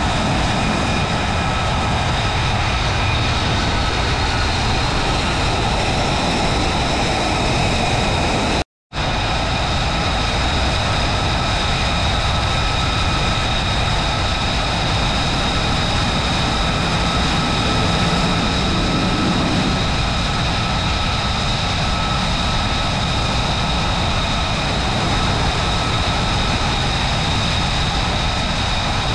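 F-35B jets' turbofan engines running at idle and taxi power: a steady, loud rushing noise with several high whining tones held throughout. The sound cuts out for an instant about nine seconds in.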